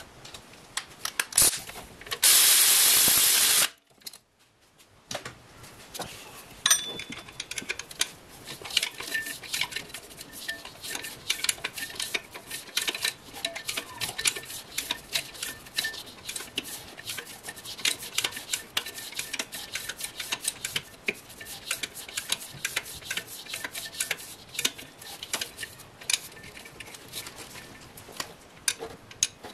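A ratchet wrench clicking in quick, irregular runs as bolts are worked, with metal tools clinking against the engine. About two seconds in there is a loud hiss lasting about a second and a half, followed by a brief near-silent gap.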